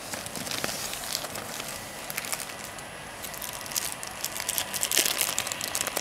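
Clear plastic bag crinkling and rustling in the hands as a camera lens is unwrapped, with irregular crackles that get busier and louder in the second half.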